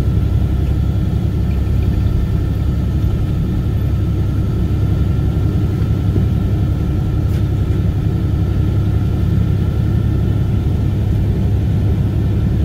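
Steady drone of a heavy truck's engine and low tire rumble heard from inside the cab while it rolls along a gravel road.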